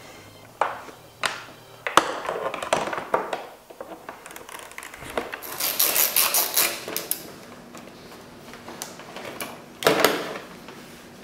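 Hand ratchet clicking in a quick run as a fairing-bracket bolt on a Honda CBR1000RR is loosened, among scattered knocks and taps of the tool against the plastic fairing. A louder knock comes near the end.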